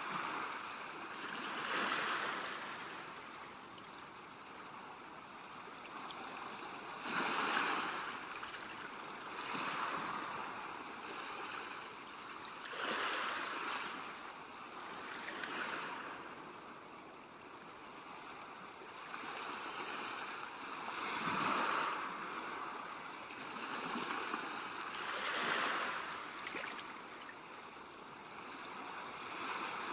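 Calm sea waves washing onto a shore, a soft surge of surf rising and falling every few seconds.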